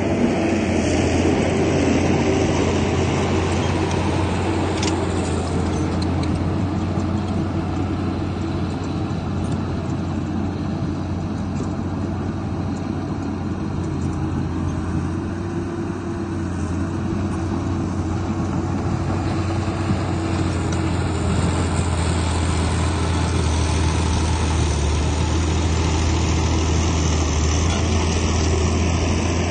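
Komatsu bulldozer's diesel engine running steadily while working, a deep drone that eases a little midway and picks up again near the end.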